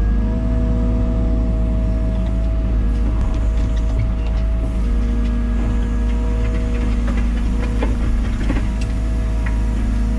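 Liebherr 914 Compact wheeled excavator heard from inside the cab: the engine runs steadily under a hydraulic whine that drops out for a couple of seconds near the middle and returns as the boom and bucket work the dirt. Scattered sharp clicks and knocks come in the second half.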